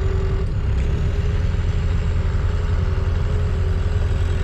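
A vehicle engine idling steadily close by, a constant low rumble with a steady hum above it.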